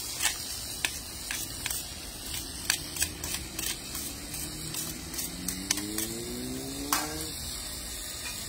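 Metal tongs clicking and clacking against a wok and against each other as chowmein noodles are tossed, several sharp clicks every second or so, over a steady hiss.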